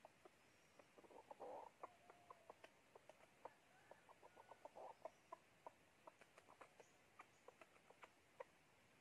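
Chicken clucking faintly: many short, irregular clucks, with two brief harsher, noisier calls about 1.5 seconds and 5 seconds in.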